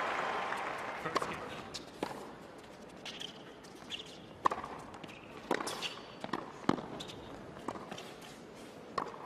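Tennis rally on a hard court: sharp racquet hits and ball bounces every second or so, the hardest about four and a half seconds in, with a few shoe squeaks over a hushed crowd. Crowd noise dies away in the first second or two.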